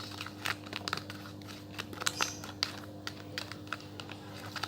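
A fork stirring white glue and water in a container, clicking and scraping against its sides in irregular little taps as the mixture is worked until it thickens. A faint steady hum underneath.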